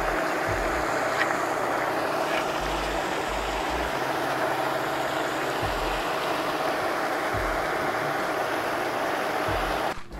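Paddlewheel aerator churning the pond water: a steady rush of splashing with a steady hum underneath.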